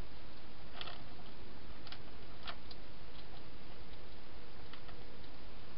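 Wild hedgehog eating inside a clear plastic feeding box: a few irregular sharp clicks and crunches, the loudest about one and two and a half seconds in, over a steady hiss.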